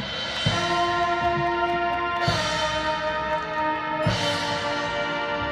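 High school marching band playing held brass chords that change three times, each change struck with a low drum hit from the percussion.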